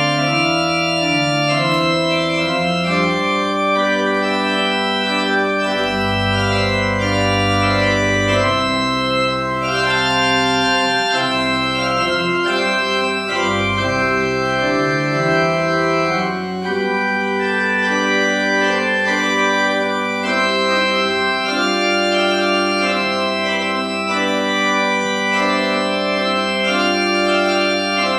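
Church organ playing a postlude of sustained chords, with deep pedal bass notes coming in now and then.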